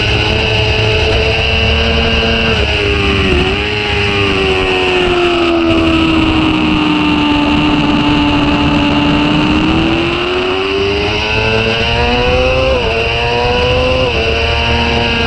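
Sport motorcycle engine heard from on board at track speed. Its note dips briefly about three seconds in, falls slowly as the bike slows into a corner in second gear, then climbs again with two short drops near the end as it shifts up. Steady wind rush runs underneath.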